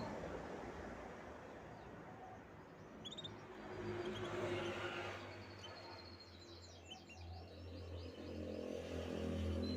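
Canaries chirping: scattered short high chirps, then a fast run of quick downward-sweeping notes a little past the middle, over a steady background hiss and a low hum.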